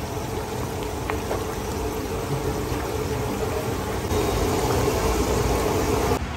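Chicken changezi curry gravy bubbling at a hard boil in a large wide pan, a steady bubbling hiss with a few small pops.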